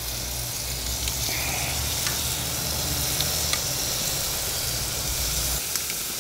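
Marinated chicken wings sizzling on the hot grates of a gas grill, a steady hiss as more wings are laid on, with a few light clicks. The sizzle shows the grate is properly hot.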